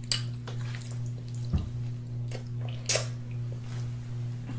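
Wet mouth sounds of eating oxtails by hand: a few short, sharp smacks and sucks about a second and a half apart. Under them runs the steady hum of an electric fan.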